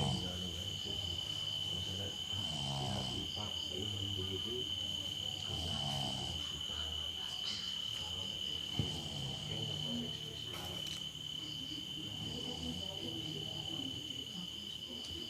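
A person snoring: several slow, drawn-out snores a few seconds apart, over a steady high-pitched whine.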